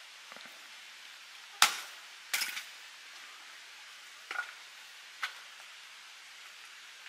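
Several sharp knocks at uneven intervals over a steady hiss: the loudest about one and a half seconds in, a quick cluster of knocks just after, then two lighter knocks.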